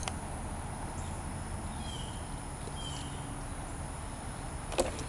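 Outdoor ambience: a steady background hiss with insects and two short bird chirps about two seconds in. Near the end comes a sharp knock as the motorcycle's lead-acid battery is pulled out of its battery box.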